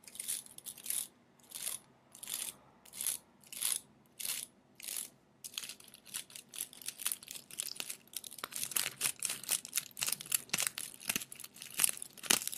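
Close-miked fingertips scratching and rubbing to imitate a scalp massage. The strokes come slowly and separately, about every two-thirds of a second, then turn into faster, denser scratching from about halfway.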